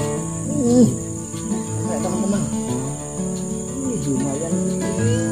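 Insects giving one steady high-pitched drone, over background music with a gliding melody.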